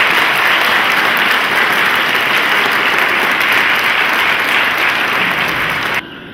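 Audience applauding, a steady dense clapping that cuts off suddenly near the end.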